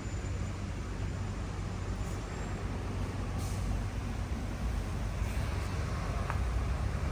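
City street traffic: a steady low rumble of passing vehicles, with a couple of short hisses a few seconds in.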